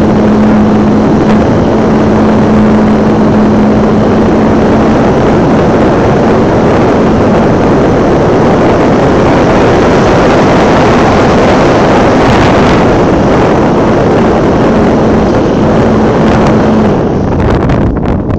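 Loud wind rush on the microphone of a phone riding aboard a flying RC model airplane, over the steady hum of the plane's motor and propeller. Near the end the motor hum stops and the rush eases.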